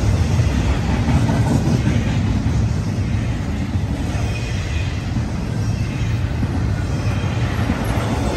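Freight train cars rolling past close by: a steady rumble of steel wheels on the rails that does not let up.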